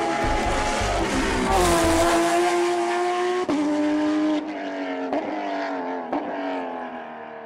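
Race car engine running at high revs, its note briefly broken three times in the second half, growing fainter until it cuts off at the end.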